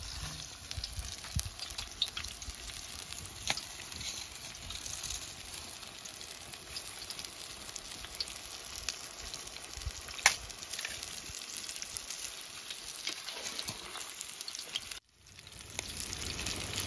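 Batter-coated chicken pieces deep-frying in hot oil in an iron kadai: a steady sizzle with scattered sharp pops. The sound cuts out for a moment near the end and comes back.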